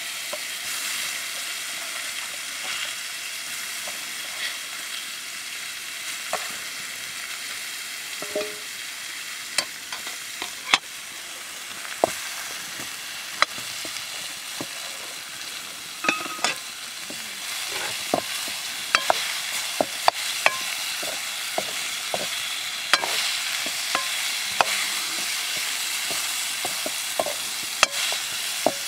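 Sliced potatoes frying in a metal pan, a steady sizzle, with sharp clicks and scrapes of a metal ladle stirring against the pan that come more often in the second half.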